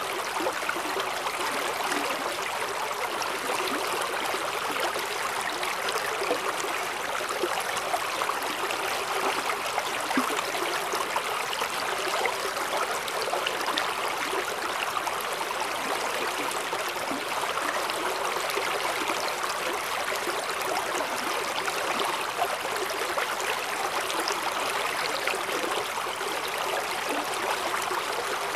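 Mountain stream rushing steadily over rocks in a granite valley, a continuous even rush of water.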